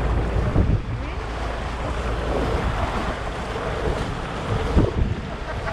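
Wind buffeting the microphone over the rush of water along the hull of a historical 18-foot skiff sailing hard in a blustery breeze, with spray hissing across the deck.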